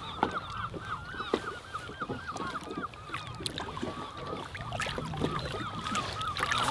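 A flock of gulls calling over the water: many short, overlapping calls, repeated constantly, with a few sharp knocks among them.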